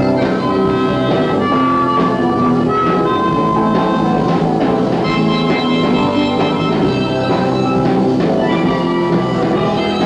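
Live garage rock band playing: electric guitar, bass guitar and drums.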